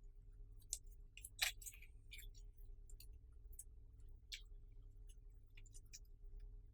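Slime being pressed and worked by hand, giving faint sticky clicks and small pops at irregular intervals, one louder pop about a second and a half in.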